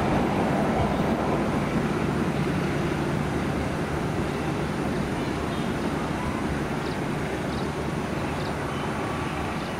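Passenger train running away down the track, the steady rumble of its wheels on the rails slowly fading as it recedes.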